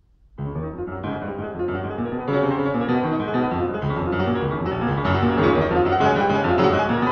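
Piano background music starts suddenly less than half a second in and grows fuller and louder about two seconds later.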